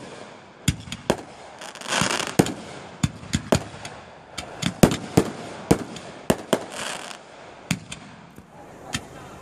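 Aerial fireworks bursting in a quick, irregular string of sharp bangs, well over a dozen in a few seconds, with two brief stretches of hissing crackle among them.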